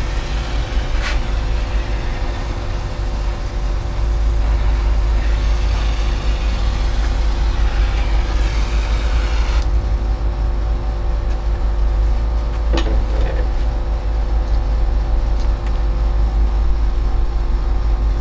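Steady low rumble and hum of running machinery, with a hiss that drops away abruptly about ten seconds in.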